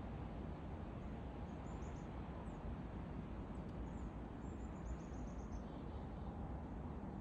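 A small bird giving very high, thin notes in quick runs: a short run about a second and a half in, and a longer one of about eight notes near the middle. Under it is a steady low background rumble.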